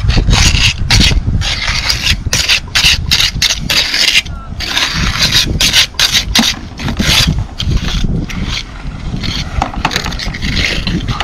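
Steel pointing trowel scraping mortar off a bricklaying trowel and pressing it into a brick joint to pack it tight: a run of short, quick rasping strokes over a low rumble.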